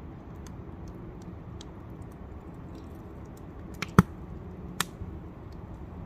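Wood fire crackling in a metal campfire ring: scattered small ticks over a steady low rumble, then three sharp pops close together about four seconds in, the middle one loudest.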